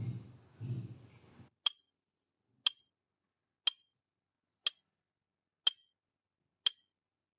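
Countdown timer tick sound effect: six sharp, clock-like ticks, one a second, starting a little under two seconds in.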